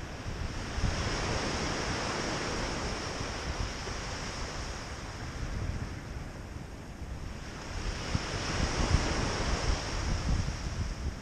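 Small waves breaking and washing up a gravel beach, swelling about a second in and again from around eight seconds, with wind rumbling on the microphone.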